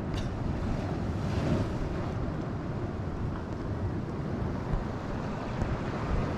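Wind buffeting the microphone over the steady wash of sea waves breaking against rocks, with one louder surge of surf about a second and a half in.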